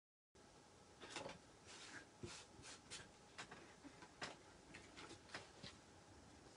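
Faint rustles and light crackling taps of thin plastic stencil transfer sheets being handled, slid and laid down on a sign board, about a dozen short crackles scattered through.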